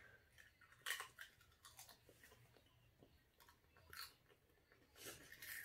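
Faint crunching of a Pringles potato crisp being bitten and chewed, a few short crunches about a second in, near four seconds and near the end.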